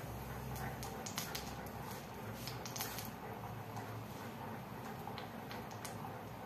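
Charred wooden matchsticks crackling as a small flame burns on, with faint irregular ticks and pops, a few bunched together about a second in and again near three seconds, over a low steady hiss.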